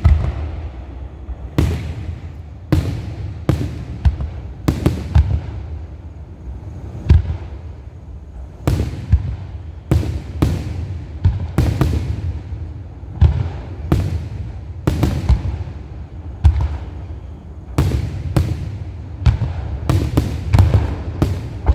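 Grand finale of a fireworks display: a rapid series of shell bursts booming one after another, about one to two a second, with a continuous rumble between them.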